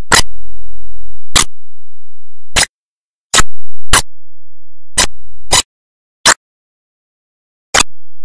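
A series of sharp clicks at uneven intervals, about one a second, with a faint low rumble under a few of them.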